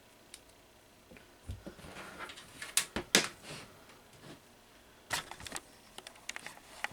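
A box fan's plug being handled and pushed into an outlet: a low thump, then several sharp clicks and knocks with light rustling, the fan not yet running.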